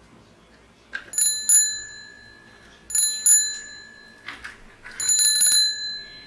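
Small metal bell on a plastic toy cycle rickshaw ringing: two dings about a second in, two more around three seconds, then a quick run of rings near the end. Light plastic knocks fall in between.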